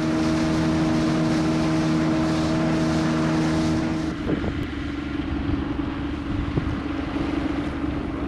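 Boat motor running at a steady speed, with wind rumbling on the microphone. About four seconds in the sound changes abruptly: the steady hum drops to a single lower tone and the wind rumble grows.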